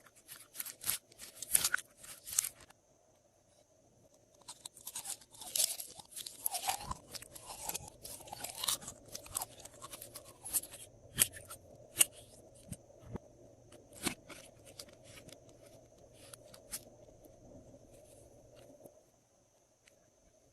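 Glossy slime being mixed with crunchy add-ins, giving dense crunching and crackling in two stretches in the first half, then scattered single pops and clicks that fade out near the end.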